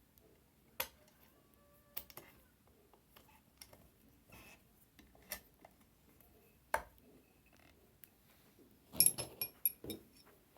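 Scattered clicks and knocks of metal parts being handled, then a quick run of ringing metal clinks near the end, as a bolt and washer are fitted to mount the handle of a button press.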